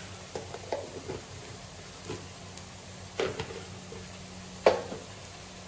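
Onions and garlic frying in oil in a metal kadai with a steady low sizzle, and a steel spatula scraping and knocking against the pan a few times, loudest a little under five seconds in.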